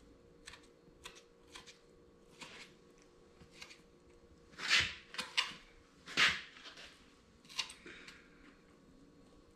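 Short rustling scrapes from hands and tools working the hide on a deer shoulder mount, as the lips, nostrils and eyes are tucked. About ten separate scrapes, the two loudest in the middle.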